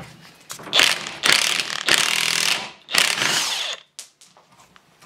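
Impact wrench hammering in about three bursts on a seized screw of an air-suspension compressor's exhaust valve, until the screw shears off.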